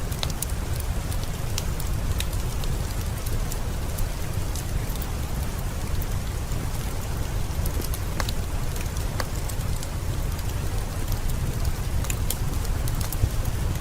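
Heavy rain falling steadily with a deep low rumble, and a wood fire crackling, with scattered sharp pops throughout.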